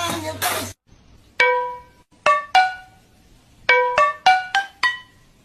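Singing over music cuts off abruptly just under a second in. A sparse, halting melody of single plucked notes follows, each note ringing briefly and fading.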